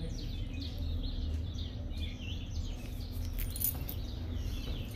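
Small birds chirping over and over in the background, short quick calls over a low steady rumble.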